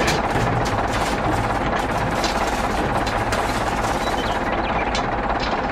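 Toy remote-control excavator's small electric motor and gearbox whirring steadily with a rattle of gear clicks as its arm hauls up a toy tractor.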